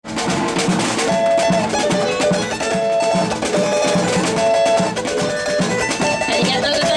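Live samba band playing: surdo bass drums keep a steady beat under other percussion, with a small four-string cavaquinho and a voice carrying held melody notes.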